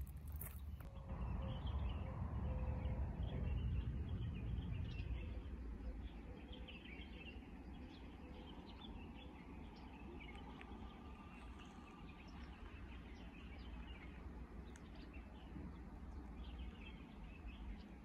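Small birds chirping again and again over a steady low background rumble. The rumble swells for the first few seconds, then eases off.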